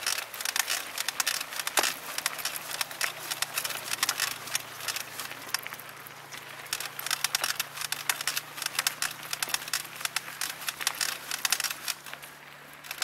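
Mountain bike rolling along a dirt trail: a dense, uneven crackle of tyres on loose dirt and grit, with the bike rattling over the bumps. The crackle eases a little near the end.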